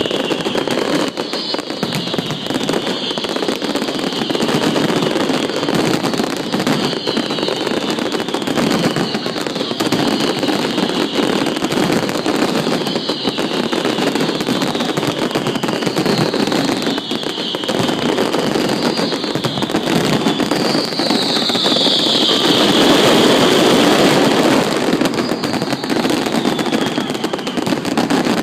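Fireworks display going off in a dense continuous barrage of crackles and bangs, with a high falling whistle every couple of seconds, loudest a little past the middle.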